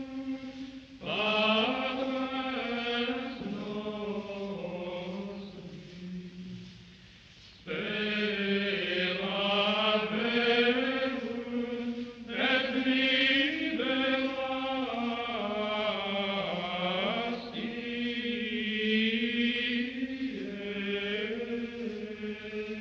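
Slow chanted vocal music: a voice holding long, wavering notes, with a short break about six seconds in.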